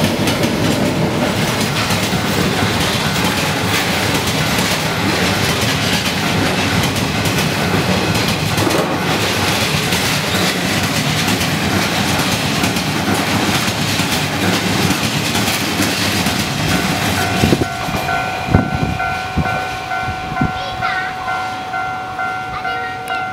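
Passenger cars of the Hokutosei sleeper express running past at speed over a level crossing: a loud, steady rush of wheel and rail noise with clatter. About three-quarters of the way through, a few sharp wheel knocks mark the end of the train, and the noise fades. The level-crossing alarm is left ringing with a steady tone.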